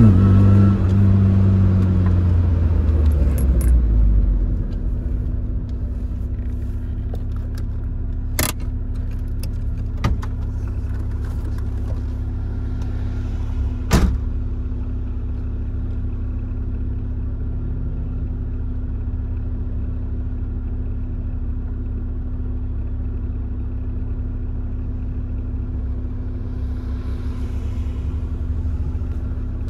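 Tofaş Doğan SLX's four-cylinder engine coming down off the revs, settling to idle within about four seconds and then idling steadily. A few sharp clicks sound in the first half.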